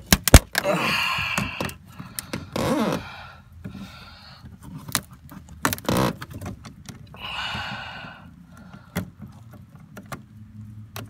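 Hands working the old plastic exterior door handle loose inside a car door: irregular knocks, clicks and scraping rattles of plastic and metal parts, the sharpest knock about a quarter second in.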